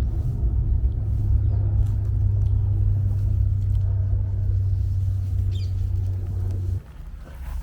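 Spiral storm drum, a large hanging spring instrument, rumbling like thunder after its spiral is twisted and released. A deep, steady hum runs under the rumble and cuts off suddenly near the end.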